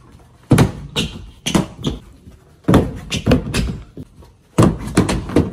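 Stunt scooter knocking and clattering on a plywood ramp: a run of sharp bangs from the wheels, deck and bars hitting the wooden surface, ending with the scooter dropped on the ramp after a failed trick.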